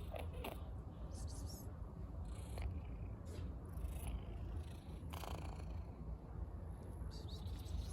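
A cat that has the flu purring steadily, with a few short, sharp noises over the purr.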